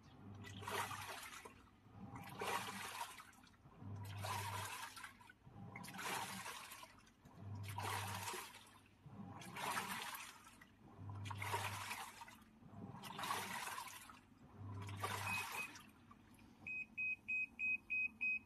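Washing machine running its wash cycle: the motor turns the drum in short alternating strokes, each stroke a swish of sloshing water with a low motor hum, about one every 1.7 seconds. This shows the drum turning normally again after the repair. Near the end the machine gives a quick run of about eight short high beeps.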